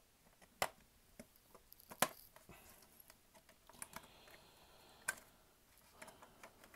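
Sparse plastic clicks and taps as a CD-ROM drive's plastic frame and tray-motor circuit board are handled and pried at with a small tool, with sharper clicks about half a second, two seconds and five seconds in.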